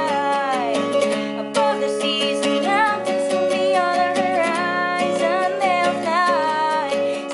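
An acoustic guitar strummed in a steady rhythm of chords, with a voice singing a wavering melody over it.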